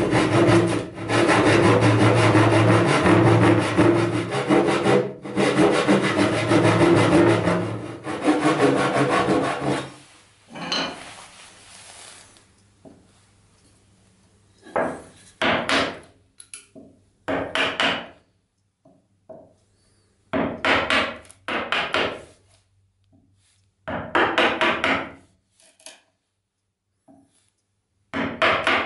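Backsaw sawing into wood with quick, steady back-and-forth strokes for about ten seconds. After a pause, a chisel is pushed through the wood in about seven separate short paring cuts, each lasting up to a second.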